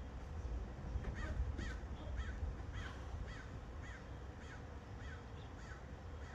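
A bird calling over and over, about two calls a second starting about a second in, over a steady low rumble.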